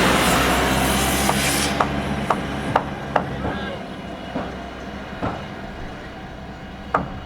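Mechanical noise: a loud rushing sound with a low hum dies away within the first two seconds, then scattered, irregular clicks and knocks follow.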